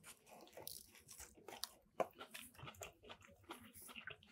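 Faint biting and chewing of a mouthful of soft, barely toasted Subway sandwich: a run of quiet mouth clicks and smacks, with one sharper click about two seconds in.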